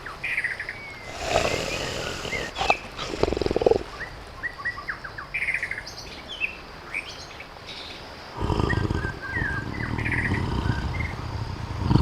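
Tiger growling in short bursts about a second and a half and three and a half seconds in, then a longer growl from about eight and a half seconds in. Birds chirp throughout.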